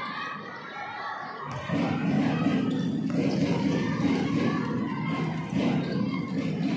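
Crowd of schoolchildren shouting and cheering in a large hall, subdued for the first second and a half, then suddenly louder.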